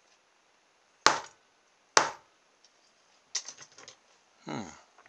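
Two sharp taps of a small hammer, about a second apart, on a steel pin held in pliers on a wooden block. The taps drive a small vibration motor's shaft through its eccentric weight to knock the weight off.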